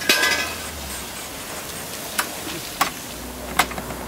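Iron tyre being worked onto a wooden cart wheel: a short hissing, ringing scrape at the start, then three sharp metal knocks a little under a second apart, while water is poured over the rim.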